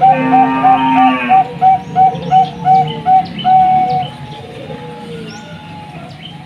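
Zebra dove (perkutut) singing: a rapid run of short, even cooing notes about three a second, closing on one longer note before stopping about four seconds in. Small birds chirp faintly throughout, and a brief lower-pitched sound overlaps in the first second or so.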